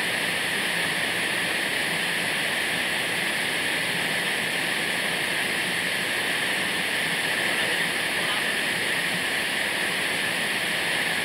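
Waterfall, its falling water making a steady, unbroken rush.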